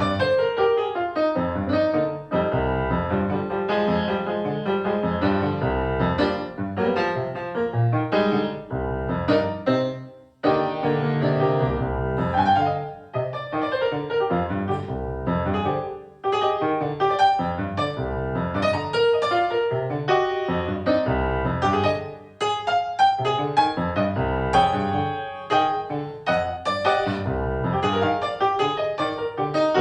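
Music led by a keyboard, with struck notes sounding continuously and brief drops about ten, sixteen and twenty-two seconds in.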